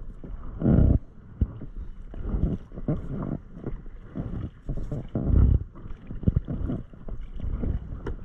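Double-bladed kayak paddle strokes on alternate sides, the blades dipping and pulling through calm water, with a swell of water noise every second or so and the odd knock.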